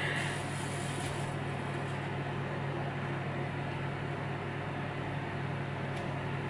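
Steady hum and hiss of a running kitchen oven, with one constant low tone and no change in level.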